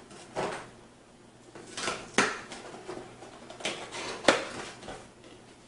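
Small cardboard processor retail box being worked open by hand: scattered fingernail scrapes, paper rustles and light taps as the sealed edge is picked and the flap pried loose, with the sharpest click about four seconds in.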